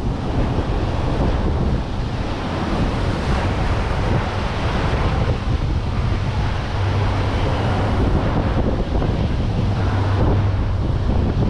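Wind buffeting the microphone over a steady wash of waves.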